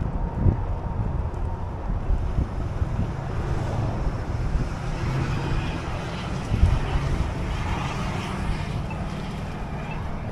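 Steady wind noise on the microphone while moving along a roadside path, with car traffic running on the road alongside.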